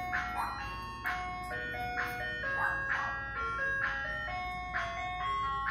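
Ice cream truck playing its jingle: a tinkling, bell-like melody of evenly spaced notes, about two a second.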